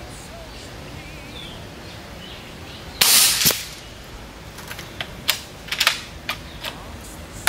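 A suppressed .30 calibre Umarex Gauntlet II PCP air rifle fires one shot about three seconds in: a sharp report with a second crack half a second later. Several sharp mechanical clicks follow over the next few seconds. Faint bird chirps can be heard before the shot.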